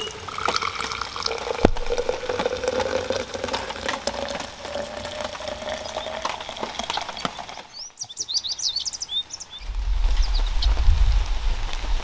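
Coffee pouring from a stainless steel coffee pot into a metal mug, its pitch rising steadily as the mug fills. It stops abruptly about eight seconds in, followed by birds chirping and a low rumble.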